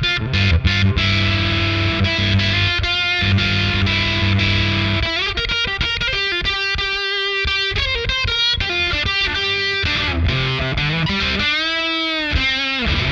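Electric guitar with humbuckers played through a FET compressor into an overdrive pedal, giving a driven, sustaining tone. Held chords ring for the first five seconds or so, then it moves into single-note lead lines, ending on a long note with wide vibrato.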